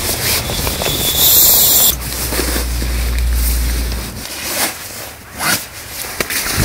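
Rustling and scrunching of nylon fabric as camping gear is rolled up and stuffed into a nylon stuff sack. A low rumble runs for about two seconds near the middle.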